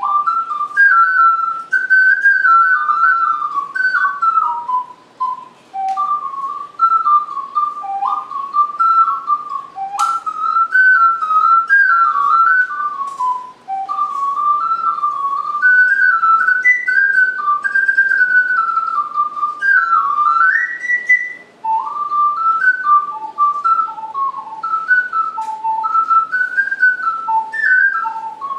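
Solo ocarina playing a melody: a single line of clear, pure, whistle-like notes stepping up and down, in phrases separated by a few short breath pauses. A sharp click about ten seconds in.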